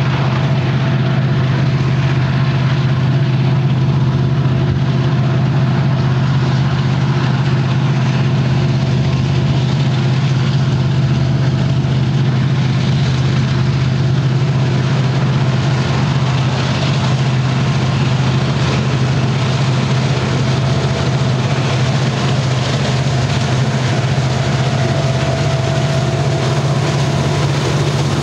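Union Pacific diesel-electric freight locomotives, led by an EMD SD70ACe, running past with a steady, heavy engine drone.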